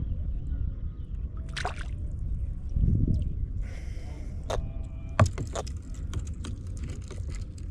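Water sloshing against a kayak hull over a steady low rumble, with several sharp knocks and splashes, the loudest about five seconds in, as a small fish is hauled up out of the water on the fishing line.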